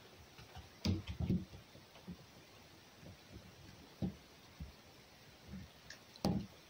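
Faint, irregular knocks and clicks from a fox eating a piece of meat on a wooden box, with a cluster about a second in and another near the end.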